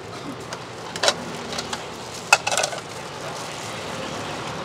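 Serving utensils clinking against bowls: one clink about a second in, then a sharper clink and a quick rattle of clinks a little after two seconds. A steady rumble of traffic runs underneath.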